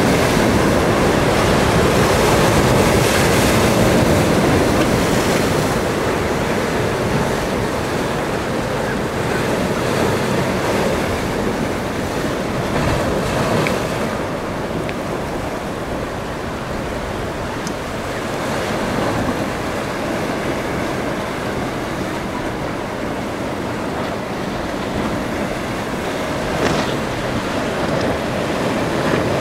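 Rough surf and churning boat wake water in a tidal inlet, with wind buffeting the microphone. The noise is steady, heaviest for the first several seconds, then eases slightly.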